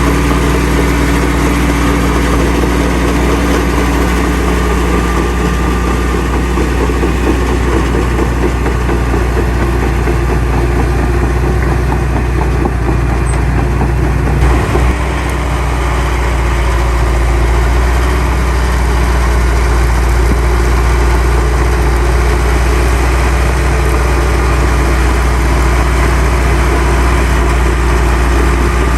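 Diesel engine of heavy earthmoving machinery running steadily at a low drone, with a brief knock about halfway through, after which the sound shifts slightly.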